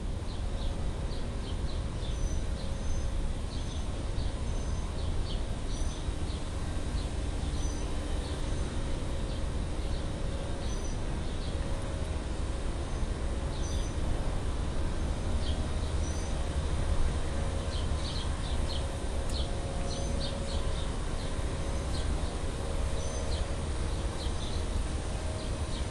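Steady low rumbling background noise, with faint scattered crackles and ticks of a fox squirrel gnawing open a walnut shell, thickest past the middle. Short high bird chirps repeat every second or two.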